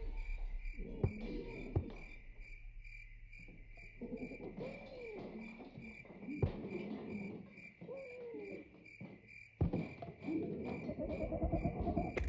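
Crickets chirping in a steady pulsing rhythm. Under them come several dull knocks, the loudest about three quarters of the way through, and low wavering tones that rise and fall.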